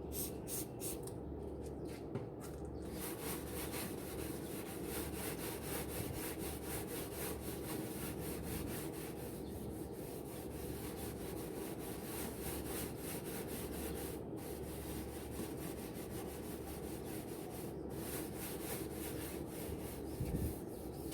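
Scrubbing a stainless steel barbecue grill clean, with rapid, steady back-and-forth scouring strokes.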